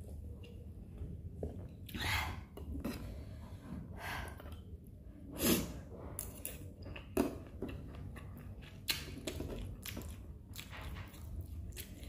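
Close-up eating sounds: a person chewing canned corn spooned from the can, with several short sharp sounds, the loudest about five and a half seconds in.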